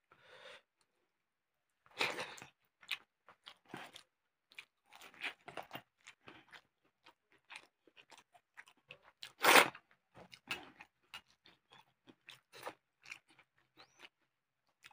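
Close-miked eating of pakhala bhat (fermented rice soaked in water) with tomato chutney: irregular chewing and mouth sounds, mixed with fingers working the wet rice in a steel bowl. The loudest mouthful comes about nine and a half seconds in.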